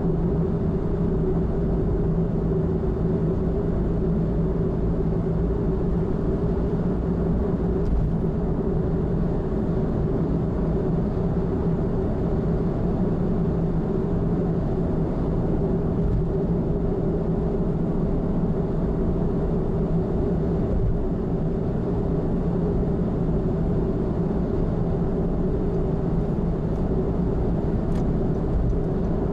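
Car cruising at steady expressway speed: even road and engine noise with a constant low hum, unchanging throughout.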